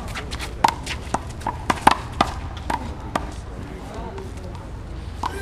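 One-wall handball rally: a small rubber handball is slapped by hand and smacks off the concrete wall and court in a run of sharp cracks, several a second for about three seconds, then a pause before another near the end.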